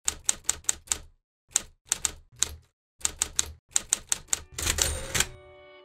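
Manual typewriter keys striking in quick runs of three to five clacks, about five a second, with short pauses between words. A denser rattling burst of the mechanism follows a little after four and a half seconds, and a soft held tone begins near the end.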